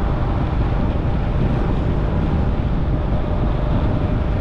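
Steady wind buffeting the microphone on a moving ride, with road and engine noise underneath.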